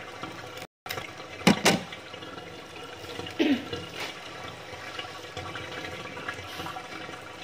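Water running steadily from a garden hose and splashing. Two sharp knocks sound about a second and a half in.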